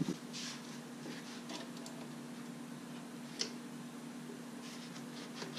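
Faint clicks of pliers working a spring hose clamp on a rubber air intake hose, with one sharper metal click about three and a half seconds in, over a steady low hum.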